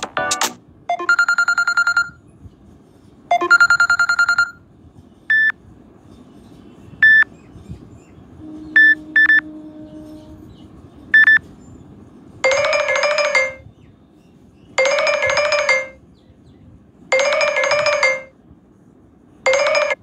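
Stock Samsung Galaxy Tab A ringtones previewed one after another. First come two short pulsing bell rings, then a few single electronic beeps and a quick double beep. From about halfway, a warbling ring-tone phrase repeats four times with short gaps.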